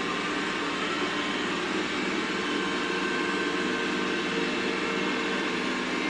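Xiaomi robot vacuum-mop running, a steady whirring hum of its suction fan and motors as it drives across a hard tiled floor.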